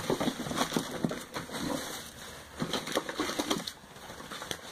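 Plastic bags and product packaging rustling and crinkling as items are handled, with scattered light clicks and taps, dying down near the end.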